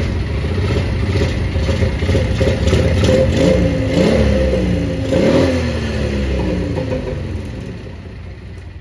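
Small Yamaha ATV's single-cylinder engine running, blipped up in revs twice, about three and a half and five seconds in, then fading away near the end. The owner says that although it runs, the engine is far from healthy and uses an excessive amount of oil.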